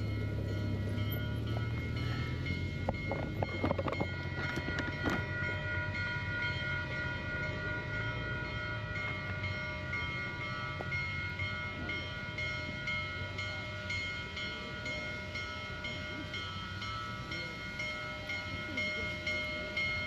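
Union Pacific Big Boy 4014 steam locomotive's bell ringing over and over as the engine approaches, with crowd chatter beneath.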